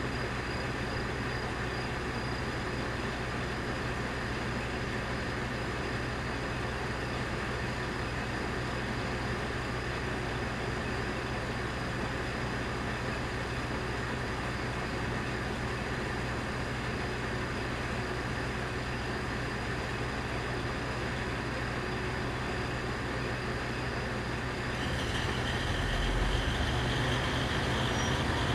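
KiHa 40 diesel railcar's engine idling steadily while the railcar stands at the platform. About 25 seconds in, the engine note rises and pulses and a higher whine joins, as the railcar begins to pull away.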